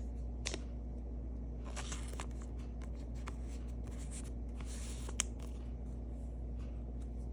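Trading cards being handled: short scratchy slides and rustles, with one sharp click about five seconds in, over a steady low hum.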